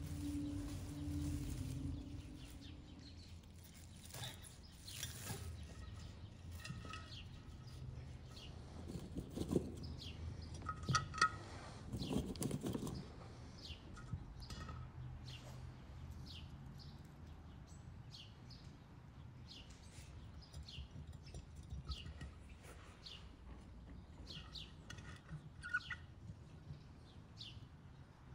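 Small birds chirping in short calls throughout. Soft rustling and light knocks of vegetables being handled stand out about nine to thirteen seconds in.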